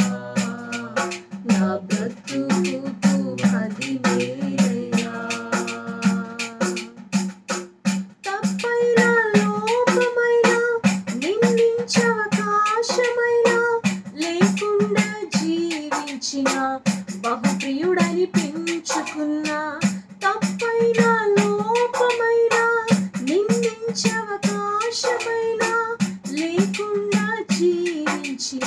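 A woman singing a Telugu Christian devotional song in long phrases, with steady hand claps keeping the beat.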